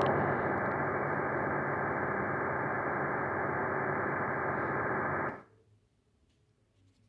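Sonified space recording of Jupiter's radio emissions, labelled as Jupiter's electricity or lightning: a steady, muffled static hiss that cuts off suddenly about five seconds in.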